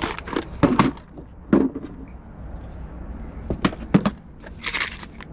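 Rocks knocking and clicking against each other as they are handled in a box: a handful of sharp, separate knocks, with a short rustle near the end.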